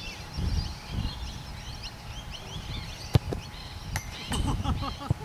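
Small birds chirping throughout, with the sharp thud of a football being kicked about three seconds in and a couple more knocks near the end.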